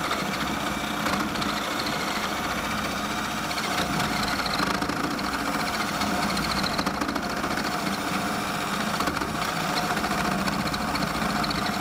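Ryobi cordless drill running steadily under load, boring a large hole through a wooden floor joist.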